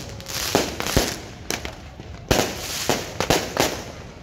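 Fireworks and firecrackers going off: a string of irregular sharp bangs, about seven in four seconds, over a crackling haze.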